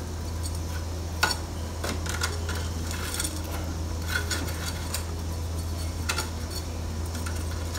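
Metal tongs clinking and scraping against an air fryer basket's wire mesh rack as chicken wings are turned over: a few scattered sharp clinks over a steady low hum.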